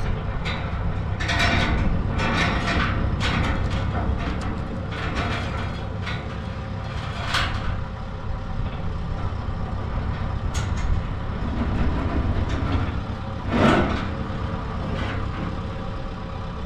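Telehandler's diesel engine running steadily as it lifts a steel land-plane frame on chains, with scattered metallic clanks and chain rattles and one louder clank near the end.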